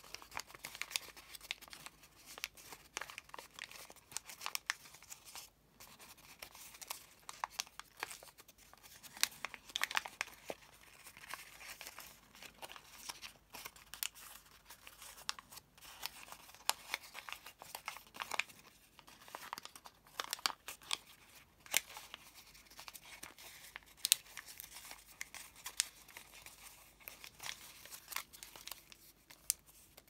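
Origami paper crinkling and crackling as fingers fold, press and shape its many thick layered folds, with irregular sharp crackles throughout.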